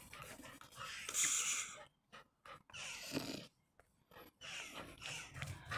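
A few short, breathy panting huffs separated by brief quiet gaps; the loudest comes about a second in.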